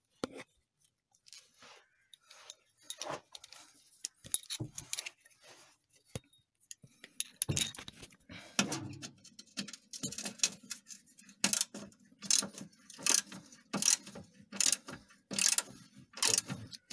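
Metal tools clinking, then a ratchet wrench clicking in repeated back-and-forth strokes, about one a second, as a 10 mm socket on an extension undoes a fastener on a car's engine underbody guard.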